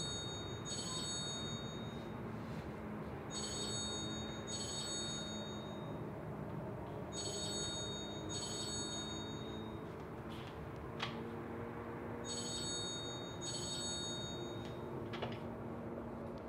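Mobile phone ringing with a classic double-ring tone: two short ring bursts at a time, repeated four times about four seconds apart.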